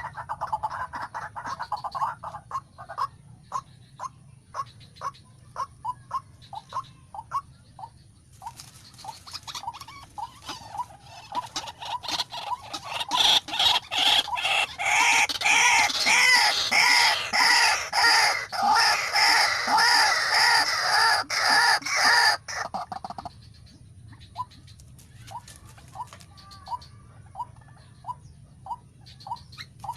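White-breasted waterhen calling: a repeated croaking note about twice a second, swelling just before halfway into a loud, rapid run of harsh calls that stops abruptly about three-quarters through, followed by softer repeated notes.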